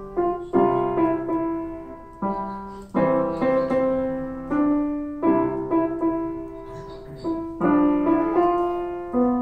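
Grand piano played solo: melody notes and chords struck one after another at a moderate pace, each ringing and fading before the next.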